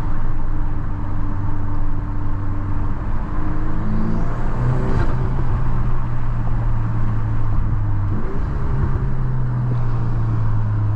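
2023 Volkswagen Golf R's turbocharged 2.0-litre EA888 four-cylinder engine running at held, raised revs, heard from inside the cabin. Its pitch steps up about four and a half seconds in and dips briefly around eight seconds before climbing again.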